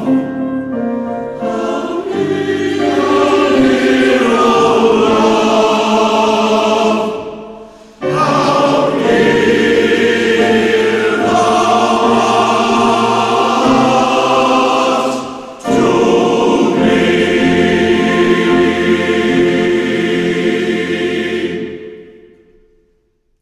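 Male voice choir singing in full harmony, its phrases broken by two short pauses. The last chord dies away near the end.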